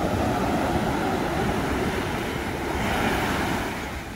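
Ocean surf breaking and washing up a sandy beach, a steady rush of water; a wave's wash swells about three seconds in, then drops away near the end.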